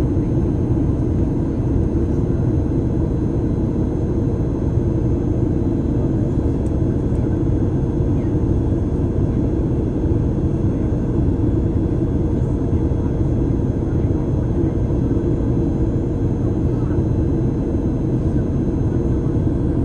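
Steady rumble of a Boeing 737 airliner's engines and airflow, heard from inside the passenger cabin during the approach.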